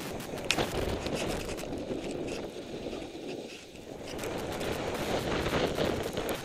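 Wind buffeting the microphone of a rider-worn camera, with the hiss and scrape of skis or board sliding fast over snow; the rush eases off briefly about halfway through, then builds again.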